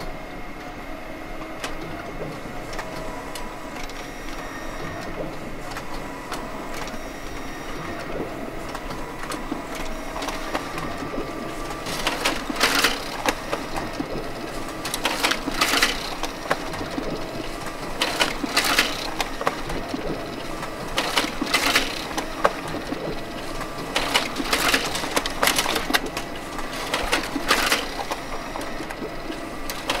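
Printer mechanism recorded close up, running with a steady whir. From about twelve seconds in come pairs of louder rasping strokes, about every three seconds.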